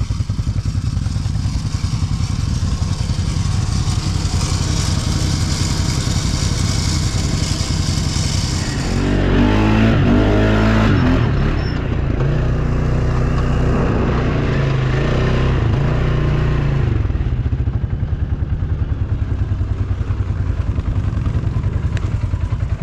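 ATV engine running, revved harder for several seconds in the middle with its pitch rising and falling, then settling back to steady running.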